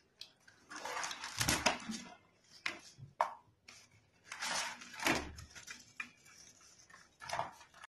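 A motorcycle roller chain is lifted and scrubbed with a petrol-wet brush to clean off grime. There are several bursts of bristle scrubbing and metal links clinking.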